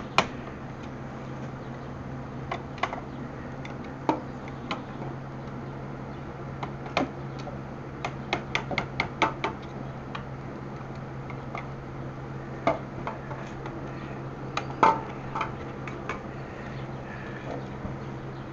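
Scattered light metallic clinks and taps of hand tools at work on a motorcycle's steering head, irregular and in small clusters, over a steady low hum.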